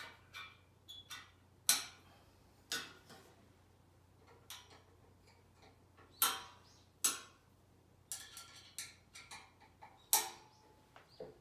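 A hand tool clicking and clinking against the metal frame of an upturned desk as screws are worked in. The clicks come irregularly, about a dozen in all, and a few are much louder than the rest.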